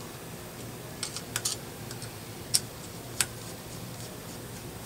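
Light metallic clicks and taps of a small hex key on 2.5 mm Allen screws as they are started by hand into an air rifle's valve housing: several irregular clicks, a quick cluster about a second in and single ones later, over a faint steady hum.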